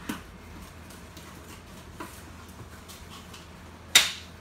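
Faint clicks of a box cutter working at the tape on a small cardboard box, then a sharp clack about four seconds in as the cutter is put down on the glass counter top.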